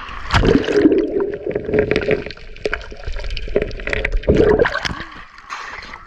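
Sea water sloshing and gurgling against a GoPro action camera held at the waterline, with irregular small splashes and clicks.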